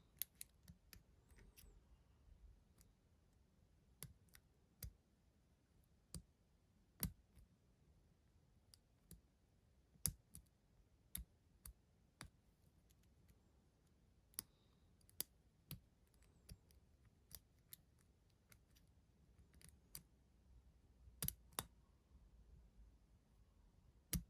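Sharp, sparse clicks of a deep hook pick working the pins of an antique pin-tumbler mortice lock cylinder, irregularly spaced about one a second over near quiet.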